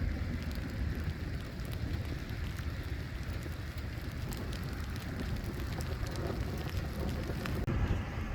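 Rain falling during a thunderstorm, with many scattered drops ticking close by over a steady low rumble.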